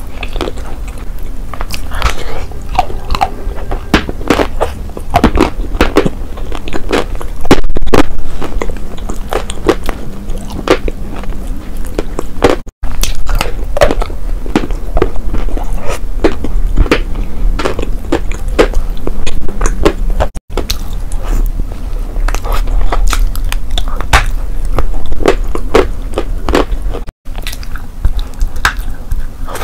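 Close-miked biting and chewing of chalk pieces coated in wet clay paste, with dense sharp crunches and wet mouth sounds. The sound is broken three times by very short silent gaps.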